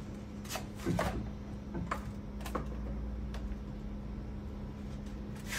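Knocks and clatter of a battery string trimmer being handled and hung back on a wall rack among other trimmers: a handful of short sharp taps, the loudest about a second in, over a steady hum.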